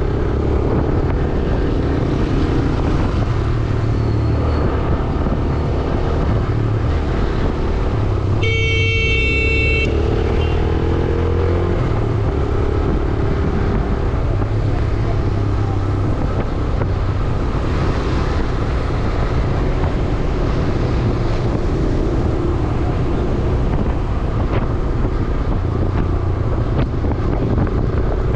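Motorcycle running under way through traffic, with a steady rumble of engine and road noise. A vehicle horn sounds once, for about a second and a half, roughly a third of the way in.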